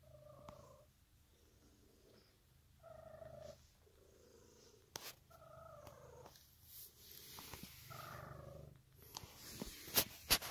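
Domestic cat purring in slow, repeated swells about every two and a half seconds, with a few sharp clicks near the end.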